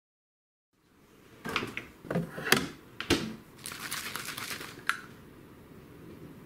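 Handling noise from an aerosol whipped cream can: a few sharp clicks and knocks, then about a second of dense rattling, and one more click.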